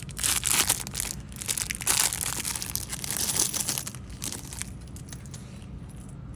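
Packaging being crinkled and torn open by hand to get at a fishing lure, in irregular rustling bursts that die down after about four seconds.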